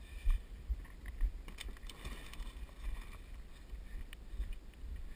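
Wind rumbling on the helmet camera's microphone, with a few knocks and bumps as the pop-bottle kayak is handled at the edge of a wooden dock. The sharpest knock comes just after the start.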